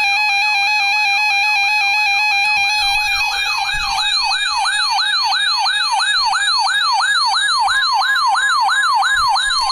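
Emergency alert tones for a severe thunderstorm warning. A steady electronic tone sounds under a siren-like whoop that sweeps upward over and over, about three times a second, growing stronger a few seconds in.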